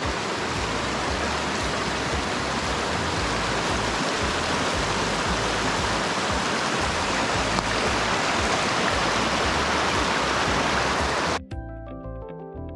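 Creek water rushing steadily; near the end it cuts off suddenly and background music takes over.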